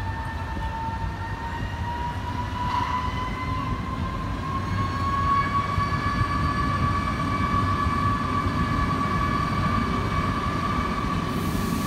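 Train pulling away from a station, heard from inside the carriage: a steady low rumble of running gear, with a motor whine that slowly rises in pitch as the train gathers speed.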